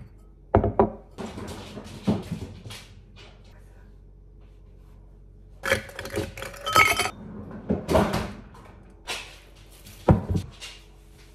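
Ice cubes dropped into a double-walled drinking glass, clinking against the glass with a short ring, amid a few sharp knocks on a countertop. The clinking is densest about six to seven seconds in.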